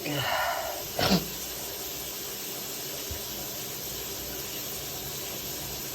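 A person with flu breathing out heavily, then a short sharp sniff through a stuffed-up nose about a second in, followed by a steady hiss.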